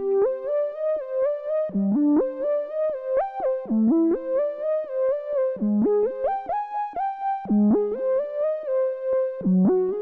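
Monophonic synth lead from the Capsule plugin's Monochrome collection, played live on a MIDI keyboard. It plays a quick melodic line, one note at a time, with each note sliding into the next.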